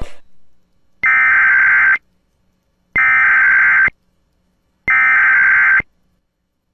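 Emergency Alert System digital header tones: three harsh, buzzy data bursts of about a second each, spaced about two seconds apart. This is the SAME header that encodes and opens an emergency alert.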